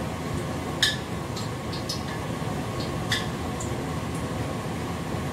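Steady low rushing noise of a lit gas stove burner, with a few short light clicks and taps as pieces of fish are turned in starch in a metal bowl.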